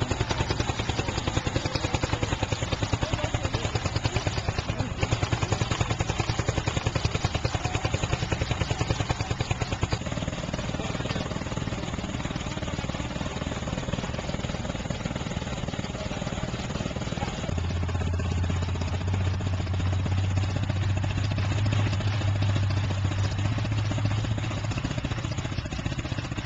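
A big chainsaw engine running, with fast, rough pulsing for about the first ten seconds. It then settles into a steadier, slightly quieter run, with a deep steady drone joining about two-thirds of the way through and stopping near the end.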